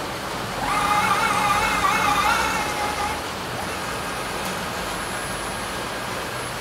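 Portable line boring machine running with a tap in its spindle, threading a hole in a steel block. A loud, wavering high-pitched squeal lasts for the first few seconds, then gives way to a steady machine hum.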